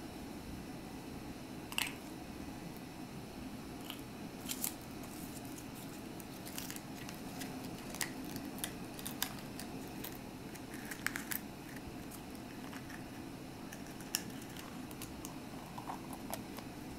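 Small plastic toy parts, a folded paper leaflet and a pink plastic capsule being handled in cloth gloves: scattered light clicks and rustles, over a steady low hum.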